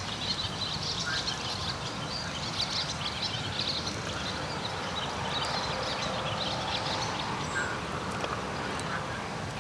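A pot of water boiling over a small wood fire, a steady dense crackling and bubbling.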